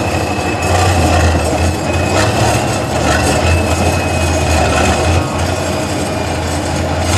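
Heavy diesel engine of a six-wheel-drive trial truck working under load as the truck crawls over rough, muddy ground. It is a deep, steady drone with a thin, steady high whine over it.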